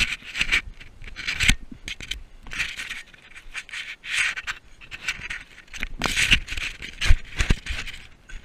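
Rope cargo net scraping and rubbing over a body-worn camera as its wearer crawls under the net on grass: a string of irregular rasping scrapes, with a few dull knocks later on.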